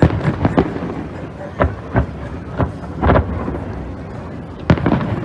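Fireworks bursting overhead: an irregular string of about nine bangs and booms, with a longer, rumbling boom about three seconds in.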